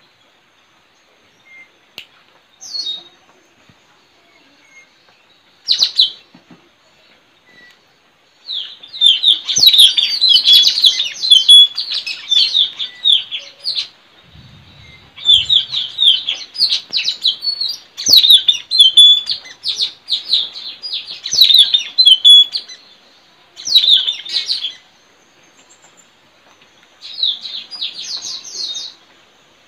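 Blue-rumped parrots (nuri tanau) calling in bouts of rapid, high-pitched chirping chatter. A few short single calls come first, then several bursts a few seconds long, separated by short pauses. This is a recording used as a lure to attract wild birds.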